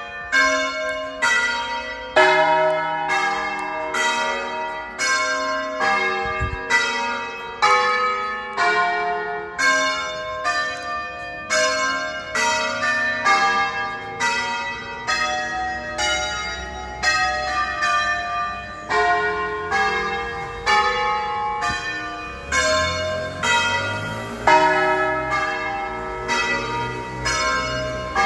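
Church tower bells, the nine largest of a thirteen-bell ring tuned in E-flat, rung by hand in a Veronese-style concert, about two strikes a second with each bell ringing on under the next.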